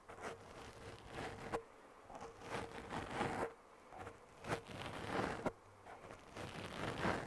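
Close-miked ASMR trigger sounds: irregular bursts of scratchy, rustling noise with a few sharp clicks.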